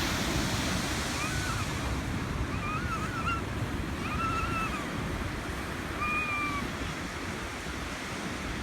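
Ocean surf breaking and washing in steadily on the beach, with four short high-pitched calls over it, about one, three, four and six seconds in.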